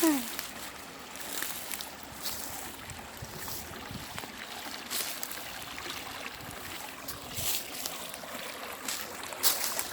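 Stream running, a steady rush of water with brief louder swells every second or two.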